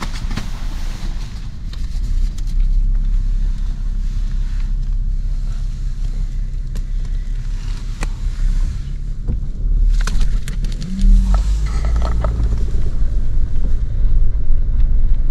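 Car driving over rough desert ground, heard from inside the cabin: a steady low rumble of engine and tyres, with a few sharp knocks and getting louder about two-thirds of the way through.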